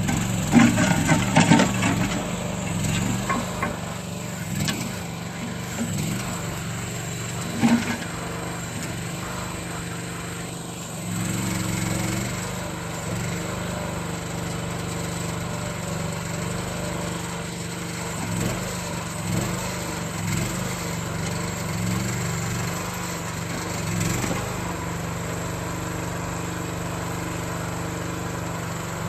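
Small engine of a towable backhoe running steadily. Clanks and knocks come over it, thickest in the first two seconds, with a sharp knock about eight seconds in.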